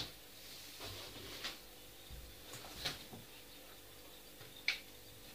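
Quiet room tone with a few faint, brief clicks and knocks spread through it, the sharpest near the end.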